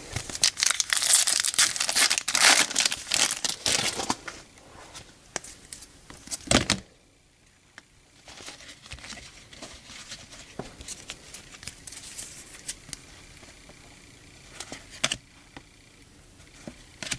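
A wrapper on a pack of 2013 Topps Series 2 baseball cards being torn open and crinkled in the hands. The crackling is loudest in the first four seconds, with one sharp burst about six and a half seconds in. After that comes quieter handling with a few light clicks.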